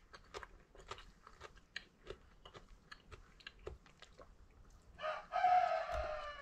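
Small crisp crunches and clicks: crisp marinated zucchini and cucumber being chewed, with a fork clicking against the plate. About five seconds in comes a loud, drawn-out high call that is the loudest sound here.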